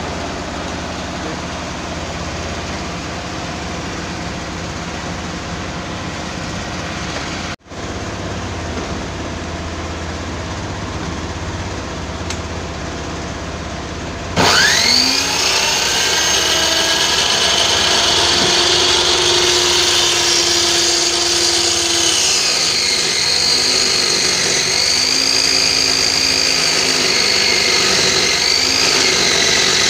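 Circular saw's electric motor, its broken carbon-brush lead repaired, switched on about halfway through: it spins up quickly with a rising whine and then runs steadily and loudly. Its pitch dips and wavers a little near the end. Before the start there is a steady, quieter hum.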